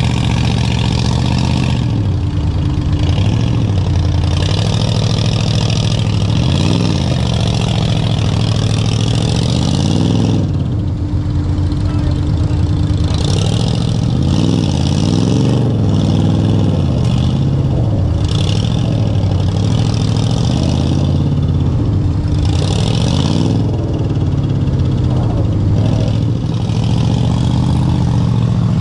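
Dodge M37 military truck's engine running steadily at low speed, revved up and back down briefly several times, with hiss rising and falling over it now and then.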